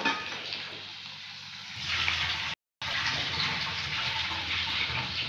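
Garlic cloves and dried red chillies sizzling in hot oil in a steel kadhai, a steady hiss that grows louder about two seconds in and breaks off for a moment shortly after.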